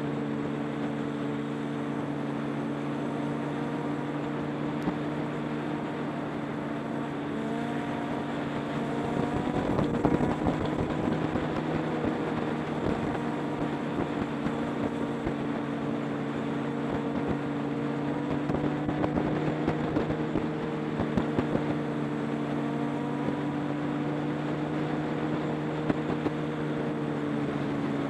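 Motorcycle engines running at a steady cruising speed, holding an almost unchanging note. Wind buffets the microphone at times, hardest about ten seconds in.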